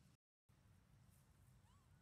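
Near silence: faint outdoor background hum, broken by a brief total dropout at an edit, with one faint short chirp near the end.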